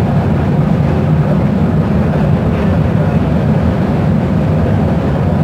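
Steady low rumble of a third-generation Kinki Nippon Sharyo light-rail car running on the line, heard from inside the passenger cabin.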